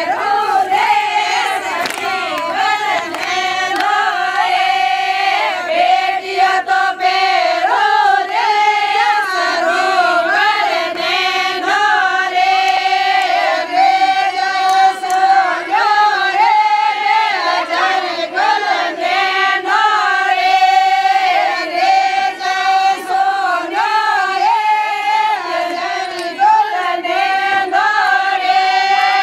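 A group of women singing a Marwari Fagan folk song together in chorus, their voices carrying one continuous melody.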